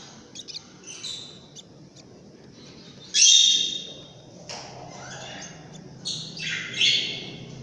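Lovebird chicks squawking in short, harsh calls. The loudest comes a little after three seconds in, and a cluster of calls follows near the end.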